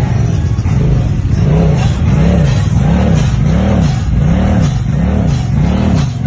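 Off-road vehicle engine revving up and down over and over, its pitch rising and falling about once every three-quarters of a second.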